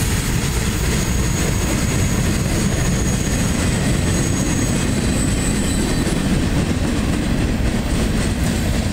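Freight cars rolling past on the rails with a steady rumble, as the last boxcars and an empty centerbeam flatcar of a CSX freight train go by. A thin, high wheel squeal fades out about six seconds in.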